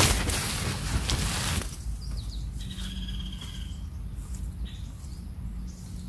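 Tent fabric rustling as the door flap is pulled open by hand, dying away after about a second and a half. After that, faint bird chirps over quiet outdoor background.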